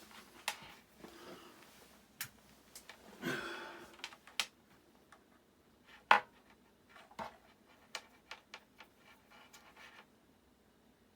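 Hands working with multimeter test probes on a computer power supply: scattered small clicks and taps, a brief rustle about three seconds in, and a sharper click about six seconds in, the loudest of them.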